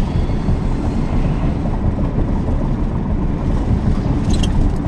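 Steady low rumble of road and engine noise inside a moving car's cabin, with a brief click about four and a half seconds in.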